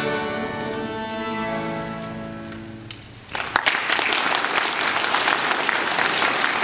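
An accordion holds the song's final chord, fading away over about three seconds, and then an audience breaks into applause that keeps on steadily.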